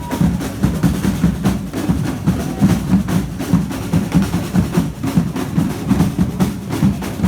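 A street procession drum band playing a fast, continuous rhythm on bass and snare drums, with rolls.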